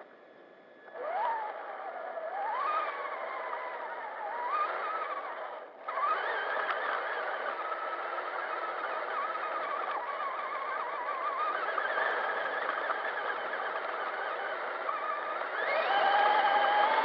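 Radio-controlled truck's electric motor and geared drivetrain whining under throttle, heard from on board. After a short quiet start come a few short bursts with the whine gliding up in pitch, then a brief cut-out just before six seconds in. A steady run follows with the pitch wandering, and a louder rising surge comes near the end.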